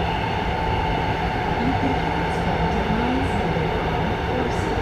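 Cabin noise of an AREX airport-railroad train running through its tunnel: a steady rumble of wheels and running gear with a constant hum over it.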